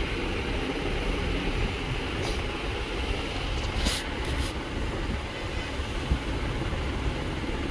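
Steady low background rumble, with a few light clicks of plastic printer parts being handled, about two seconds in and again around four seconds in.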